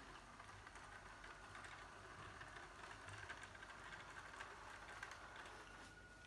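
Faint steady whine of a radio-controlled Bruder tractor's small electric drive motor and gearbox as it drives, with light ticking and rattling, easing off near the end as it moves away.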